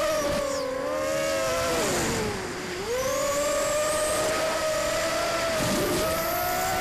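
ImmersionRC Vortex FPV quadcopter's brushless motors and 5040 propellers whining, heard from the craft itself. About two seconds in, the pitch sags and the sound drops as the throttle comes down, then it climbs back and holds steady.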